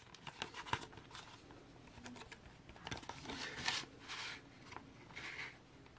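Faint handling of a RAM kit's packaging: a clear plastic clamshell tray sliding out of its cardboard box, with scattered light clicks and a few short rustles.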